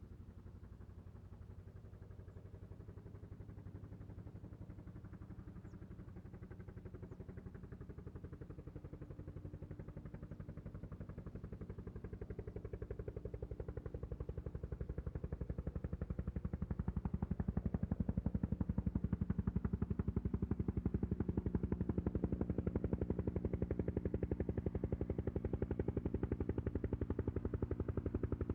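Bell 212 helicopter approaching, its two-bladed main rotor beating in a fast steady chop with engine hum beneath. It grows steadily louder for about the first seventeen seconds, then holds near full loudness as it draws close.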